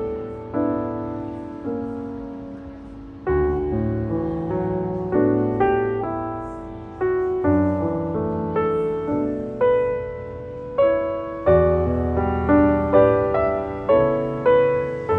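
Background music: slow solo piano, with single notes and chords struck and left to fade. The notes come more often after the first few seconds.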